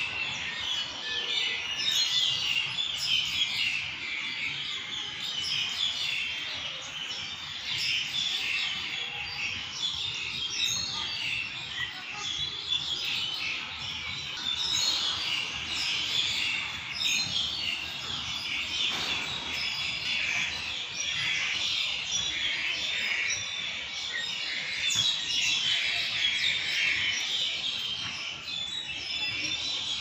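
A dense chorus of many small birds chirping and twittering at once, high-pitched and continuous.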